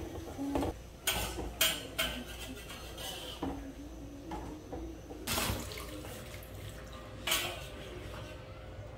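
Metal spatula scraping and knocking against a wok, about seven strokes, as a heap of cassava leaves is stirred and turned in hot water, with wet swishing between.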